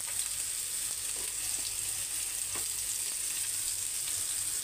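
Chicken seekh kebabs shallow-frying in oil on a flat pan over a full gas flame: a steady sizzle with a few faint crackles.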